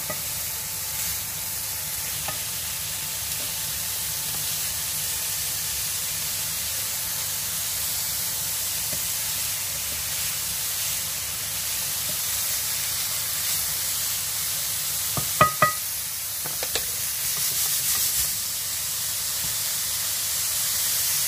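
Bacon stir-frying with chopped garlic and onion in a pan: a steady sizzle. Two sharp knocks against the pan come about two-thirds of the way through, with a few lighter knocks after them.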